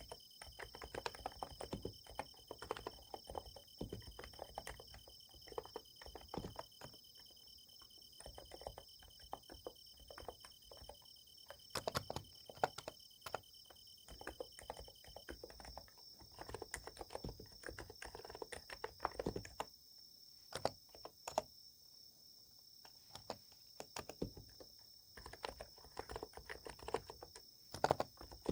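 Typing on a Niz Plum x108 electrostatic capacitive keyboard: an irregular run of soft key clicks with short pauses. Underneath, insects trill steadily on a summer night, and the lower of two trilling tones stops about halfway through.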